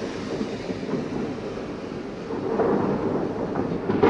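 Fireworks salute fired from launcher vehicles: a continuous low rumble of many overlapping shell bursts with scattered sharp cracks, swelling louder a little after two seconds in.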